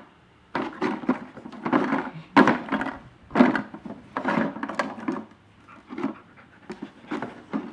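Plastic bottles knocking and rattling in a wooden frame as a husky noses and flips them on a homemade treat toy, a string of irregular clattering knocks about once a second.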